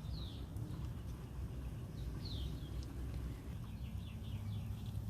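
Short, high, falling bird chirps: one near the start, another about two seconds in, then a quick run of several near the end, over a low steady hum.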